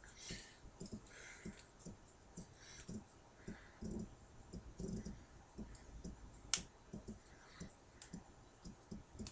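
Faint, scattered small clicks and soft knocks of a plastic action figure and its accessories being handled and adjusted, with one sharper click about six and a half seconds in.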